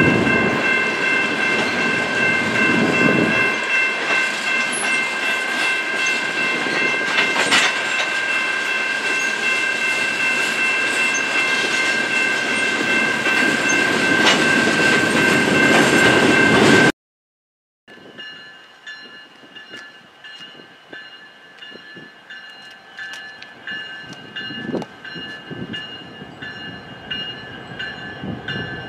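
Loaded coal hopper cars of a freight train rolling past close by: a steady rumble and clatter of wheels on rail, with a few sharp clacks at rail joints and a steady high-pitched ringing over it. About two-thirds of the way through it cuts off abruptly, and a much quieter, more distant rail sound with occasional clanks follows.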